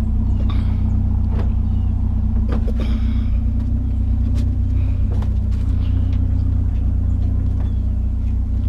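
Vehicle engine idling with a steady low hum, with scattered light knocks and clicks over it.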